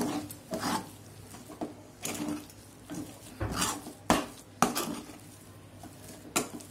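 Metal spoon scraping and knocking against a metal kadhai while stirring and mashing a thick potato masala, in irregular strokes, with the sharpest knock about four seconds in.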